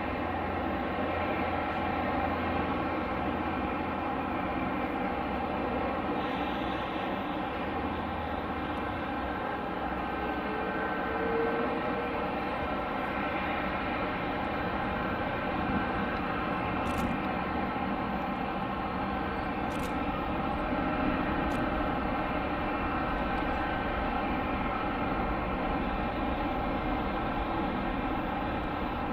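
Jet aircraft engines running steadily: a constant drone carrying a whine of several held tones, with no rise or fall in level.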